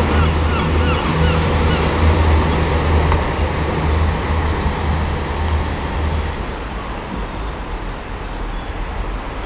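Class 159 'Sprinter' diesel multiple unit pulling away, its underfloor Cummins diesel engines running with a low drone that drops away about six seconds in as the train recedes.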